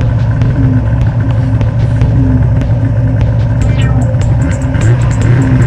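Snowmobile engine running at a steady pitch, with music playing over it.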